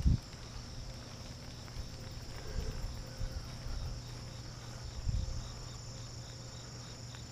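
Crickets chirring steadily in a high, continuous band, with a few low thumps, the loudest right at the start.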